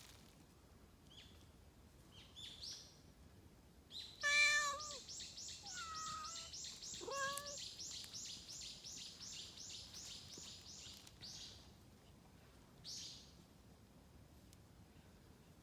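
A cat meows a few times, loudest about four seconds in with a call that falls in pitch, then a rising meow about three seconds later. Behind it, a high chirping pulses evenly about three times a second for several seconds.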